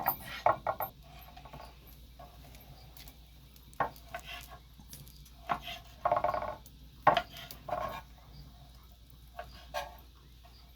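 Kitchen clatter: pots, pans and utensils being handled, with a dozen or so scattered clinks and knocks, a few of them ringing briefly.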